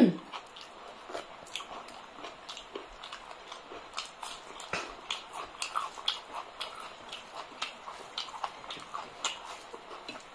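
Close-miked eating sounds: wet chewing and lip smacks, with fingers mixing rice and curry, a steady string of irregular soft clicks several times a second.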